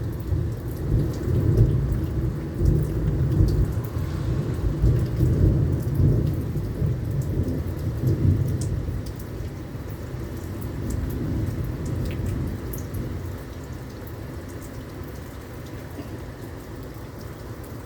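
A long roll of thunder rumbling over pouring rain. The rumble dies away about ten to thirteen seconds in, leaving the steady rain with scattered drips.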